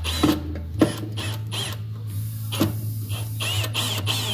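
Cordless drill driving a screw to fasten a strobe light onto a mower's sheet-metal front panel: a series of irregular sharp clicks over a steady low hum that shifts in pitch about a second in.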